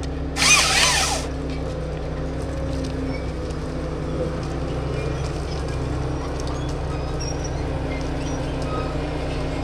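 Forestry harvester's engine and hydraulics running steadily, heard from inside the cab. About half a second in, a loud burst of under a second, the harvester head's chain saw cutting through the trunk to fell a tree.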